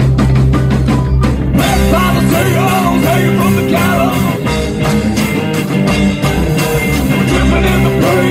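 Live rock band playing loud, with electric and acoustic guitars, upright bass and drums. About a second and a half in, the full band comes in with cymbals crashing, and a voice sings over it soon after.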